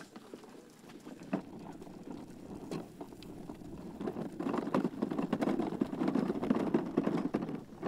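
Footsteps crunching and rustling through dry grass as the model aircraft is carried, an irregular crackle that gets louder about four seconds in.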